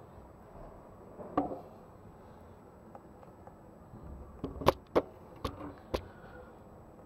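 A dull thump, then five sharp knocks in about a second and a half.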